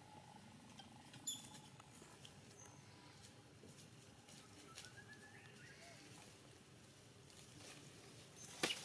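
Near silence: faint ambience with a few scattered clicks, a faint rising chirp midway, and one sharper click near the end.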